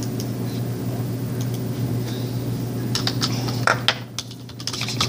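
Steady low hum of room noise, with a few light clicks and taps about three seconds in, as of small objects handled on a table.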